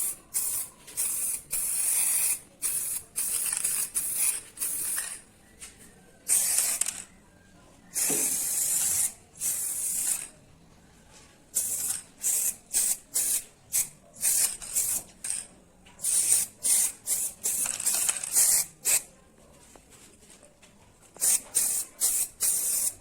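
Aerosol spray paint can spraying in many separate hissing bursts, some short and some about a second long, as paint is sprayed onto a refrigerator's metal body.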